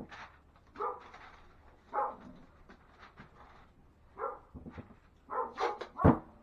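A dog barking in short, separate barks, with a quick run of barks near the end, the last one the loudest.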